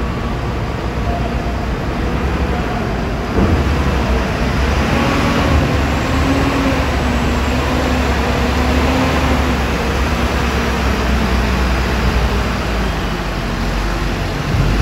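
Heavy diesel engine of a Mercedes-Benz Axor truck running at low speed as it drives onto a ferry, with a loud thump about three seconds in.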